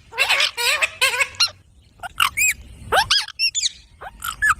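Several pet Indian ringneck parakeets squawking and chirping, a quick run of short, sharp calls that arch up and down in pitch, bunched together in the first second and a half and then coming one or two at a time.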